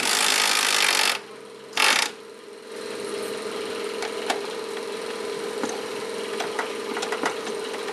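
Pneumatic impact wrench run for about a second on a rear shock absorber / suspension bolt, then a short second burst, as the bolt is loosened. Afterwards there is a steady workshop hum with a few light clicks of hand tools on the bolt.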